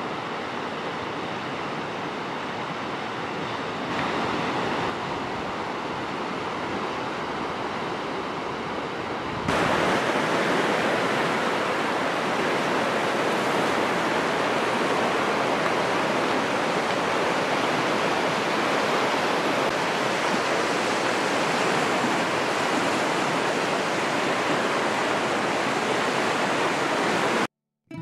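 Fast, turbulent mountain river rushing, a steady churn of water with no pauses; it steps up in loudness about nine seconds in.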